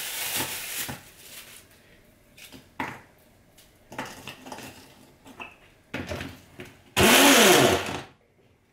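Frozen banana and strawberry pieces clicking and rustling as they go into a plastic chopper bowl. About seven seconds in, the hand blender's chopper attachment runs in one short burst of about a second, its motor pitch rising and falling as it crushes the frozen fruit.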